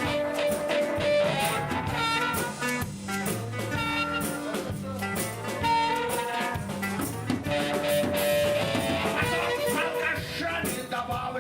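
Live band music with guitar and drums and a melody of long held notes.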